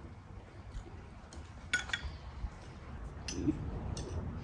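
Glass tea cups, plates and cutlery clinking lightly on a table during a meal: a few scattered clinks, the sharpest about two seconds in.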